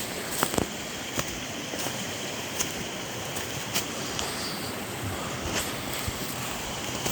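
Wind rushing over the microphone, with irregular light clicks and crunches through it.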